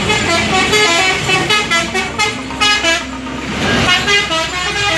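A multi-tone musical vehicle horn plays a rapid tune of changing notes over street traffic. A heavy vehicle passes close, with a rush of road noise about three and a half seconds in.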